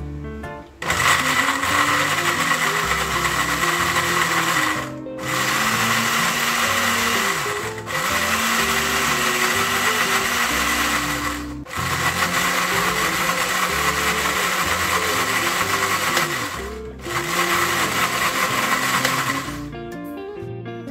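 Countertop blender grinding red chillies in oil. It starts about a second in and runs loud with a steady whine, stopping briefly four times between long runs, with background music underneath.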